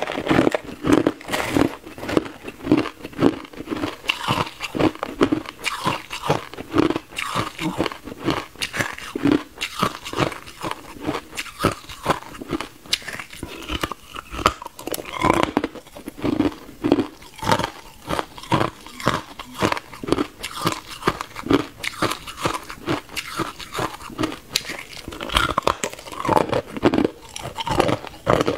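Hard clear ice being bitten and chewed close to a clip-on microphone: a continuous run of sharp, rapid crunches.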